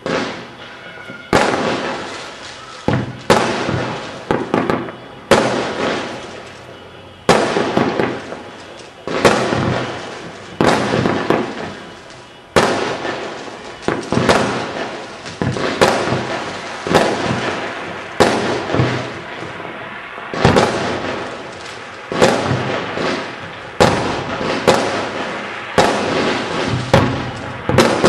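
Aerial fireworks bursting in a steady run of sharp bangs, about one or two a second, each dying away slowly.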